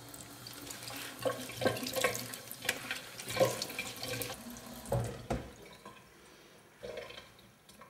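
Water running from a tap into a stainless-steel sink, splashing over gloved hands as they are rinsed. The running water stops about halfway through, followed by a few separate knocks.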